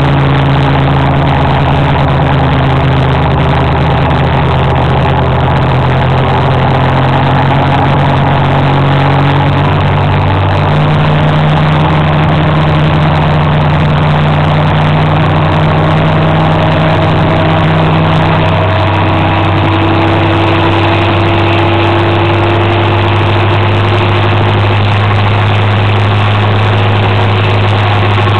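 Motor scooter engine running steadily under way, with a steady rush of wind and road noise; the engine note shifts about ten seconds in and again a few seconds before the end.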